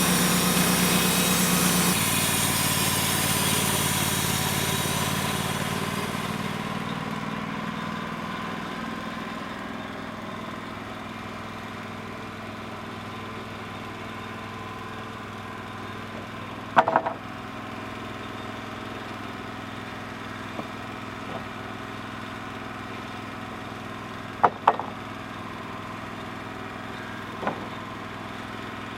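Wood-Mizer LT35 sawmill engine running. A loud spell at the start fades away over several seconds into a steady idle. A sharp knock comes a little past halfway, then a double knock and a single knock near the end.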